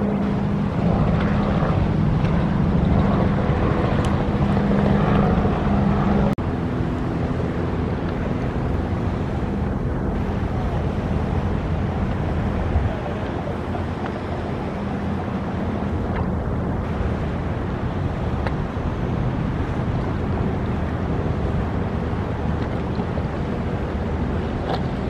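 Motorboats running past, including outboard-powered boats: a steady engine drone mixed with water wash and wind on the microphone. A strong low engine hum in the first six seconds gives way abruptly to a more even rush of engine and water.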